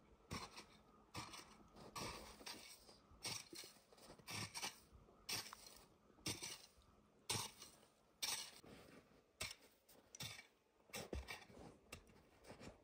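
A hand tool scraping and crunching into packed snow in repeated strokes, roughly one a second and unevenly spaced, as the snow mound of an igloo is dug out.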